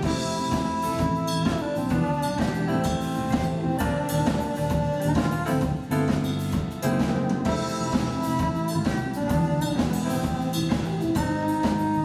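Live jazz band playing: a saxophone holds the melody over electric guitar, bass and a drum kit.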